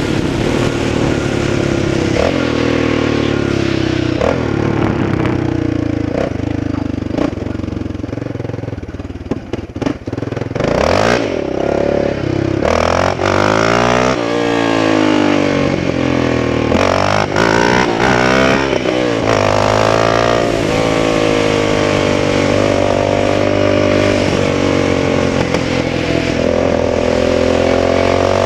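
Yamaha Raptor 700R's single-cylinder four-stroke engine running under way. The note dips and wavers briefly about a third of the way in, then revs up and down several times before settling to a steady cruise. This is the engine the owner says hesitates on long runs.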